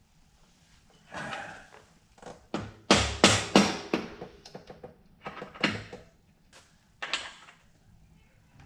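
Hammer tapping on a socket held against newly fitted mountain-bike pivot bearings, a series of sharp knocks loudest about three seconds in, checking that the bearings are seated; they are already fully seated. A short scraping handling noise comes about a second in.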